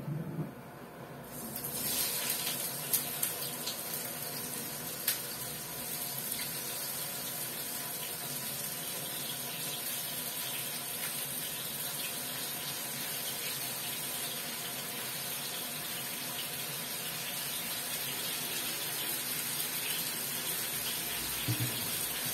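Mushrooms frying in oil in a hot frying pan: a steady sizzle that starts suddenly about a second and a half in as they go into the pan, with a few light clicks of a utensil or the pan.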